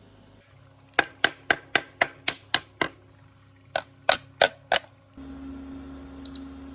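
A series of sharp clicks, about four a second, in two runs, as buttons on a BougeRV Aspen 30 PRO IceDrive portable fridge's control panel are pressed. A steady low hum then starts suddenly.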